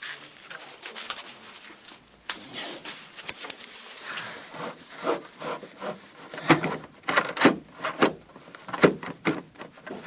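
Rubbing and scraping from hands working the car's rear seat backrest and its fittings, in irregular strokes that grow louder and more frequent in the second half.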